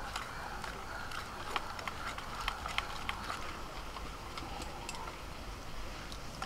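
Wire whisk clicking and scraping irregularly against a stainless-steel bowl while thick cake batter is stirred, with milk being whisked in.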